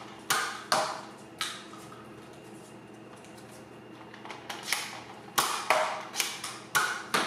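Nerf Zombie Strike Crosscut spring blaster being handled and worked, its plastic mechanism giving sharp clacks: three in the first second and a half, then a quicker run of about seven from about four seconds in.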